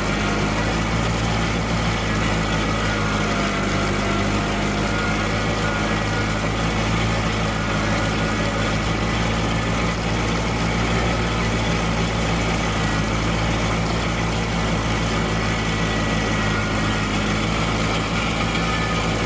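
Tractor diesel engine running steadily at a constant speed with an even hum.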